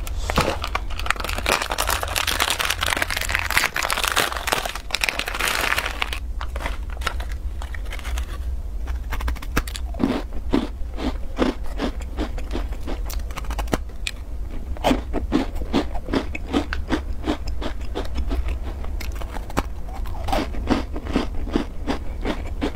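Plastic wrapper crinkling as an individually packed black sesame taosu shortbread cookie is opened. From about six seconds in: crisp bites and close-up chewing of the crumbly cookie, many short crunches in quick succession.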